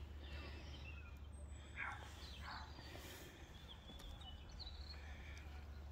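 Faint outdoor ambience: a steady low rumble with a few faint bird calls, mostly in the first half.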